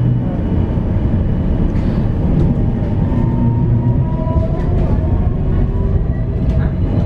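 Tram running along the track, heard from inside the car: a steady rumble of wheels on rails under a faint motor whine that rises slightly in pitch about two seconds in and then holds, with a few light clicks.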